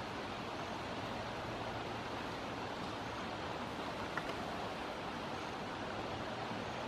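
Steady, even outdoor rushing noise with no pitch or rhythm. One brief click comes about four seconds in.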